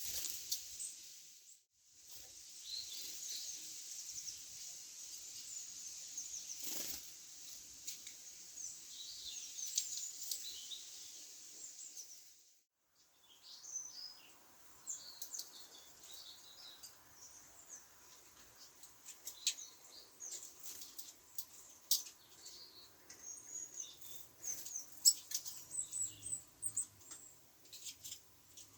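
Small songbirds chirping with many short, high calls, mixed with scattered sharp clicks and taps. The sound drops out briefly twice.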